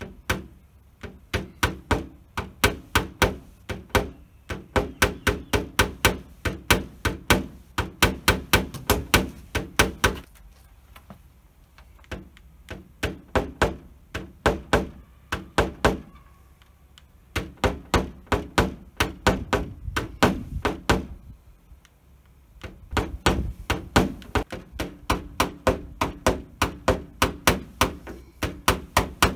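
Hammer striking a nylon tap-down tool held against a car bonnet, knocking down a high spot in the panel. The taps come in quick runs of about three a second, with short pauses between runs.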